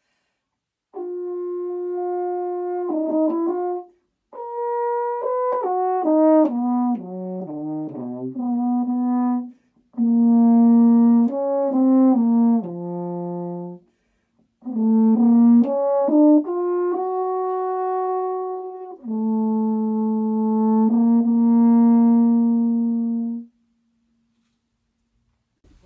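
French horn solo, played in several phrases with short breaks for breath, mixing long held notes with quick runs of notes moving down and up. It stops on a long held low note about twenty-three seconds in.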